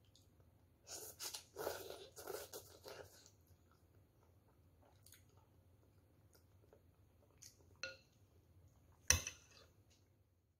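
A person slurping noodles in several quick noisy pulls about a second in, then faint chewing. Near the end comes a sharp clink as the metal spoon and chopsticks are set against the ceramic bowl; this is the loudest sound.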